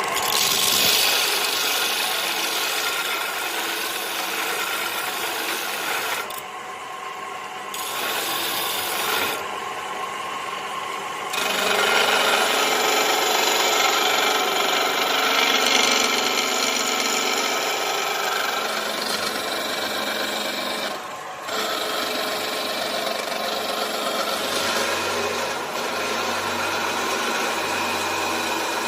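Steel being worked with an abrasive, a steady rasping and scraping that drops back briefly twice in the first half and pauses for a moment about two-thirds of the way in.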